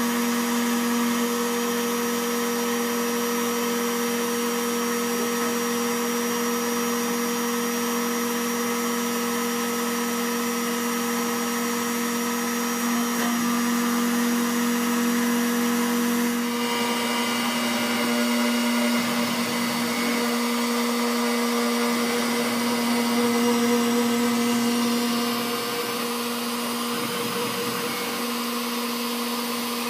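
CNC machine running: a high-speed spindle motor with a steady whine over a hiss, its sound shifting about sixteen seconds in.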